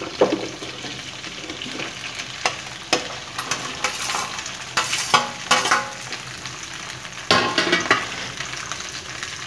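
Cut okra sizzling as it goes into hot oil in a nonstick kadhai, with a steady frying hiss. Several clattering knocks come as a steel spoon and plate push and tip the pieces into the pan, the loudest a little past seven seconds in.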